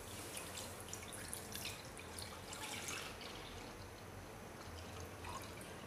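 Milk pouring in a steady stream from a bowl into a kadai, a faint liquid splashing and trickling.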